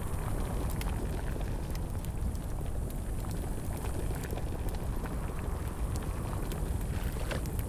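Steady low rumble with small crackles and pops scattered irregularly throughout.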